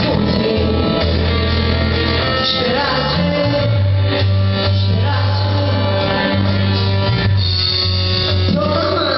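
Live band playing a pop-rock song, with singing over guitar and a low bass line.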